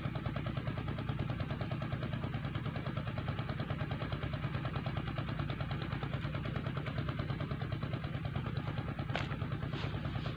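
A small engine running steadily with a fast, even throb, and two faint clicks near the end.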